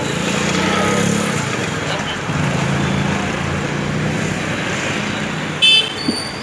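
Steady engine-and-traffic-like rumble with a low hum. About five and a half seconds in comes a short, loud, high-pitched sound.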